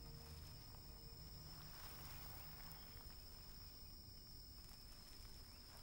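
Near silence: faint forest ambience with one steady, high insect trill, typical of a cricket.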